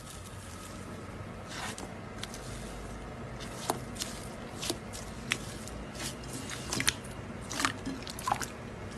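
Slime being squeezed and pressed, giving scattered crisp pops and crackles about once or twice a second.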